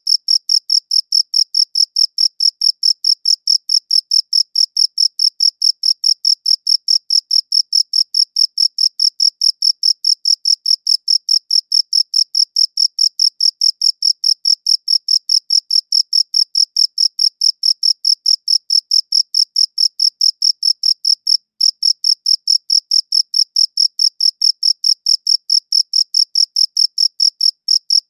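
Cricket chirping in an even, unbroken rhythm of about four high-pitched chirps a second, with a brief break about 21 seconds in.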